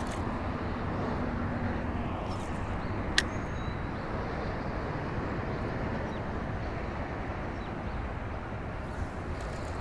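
Steady outdoor background noise with no clear single source, and a single sharp click about three seconds in.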